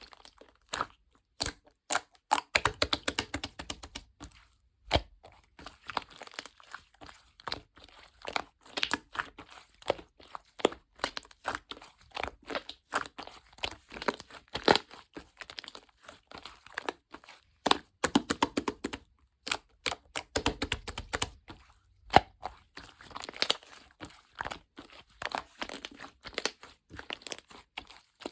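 Slime being kneaded and stretched by hand, giving a dense, irregular run of crackling and popping clicks.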